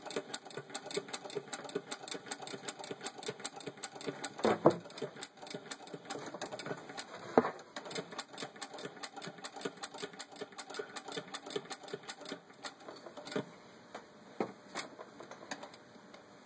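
Singer 9W (rebadged Wheeler & Wilson No. 9) sewing machine turned slowly by hand, its mechanism ticking in an even rhythm, a few ticks a second, as it stitches through six layers of denim. Two louder knocks come about a third of the way in and near the middle, and the ticking grows fainter near the end.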